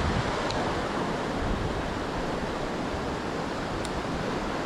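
Steady rushing of flowing river water, with two faint, brief high chirps, one about half a second in and one near the end.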